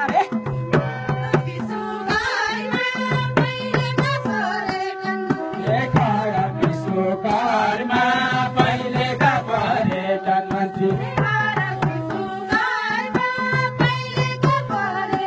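Male voice singing a Deuda folk song into a microphone, with a hand drum keeping a steady beat and keyboard notes held underneath.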